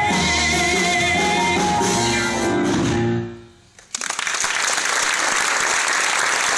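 Stage musical number sung by the ensemble with band accompaniment, ending on a held final chord that dies away about three seconds in. After a brief hush the audience breaks into applause, which quickly swells and holds.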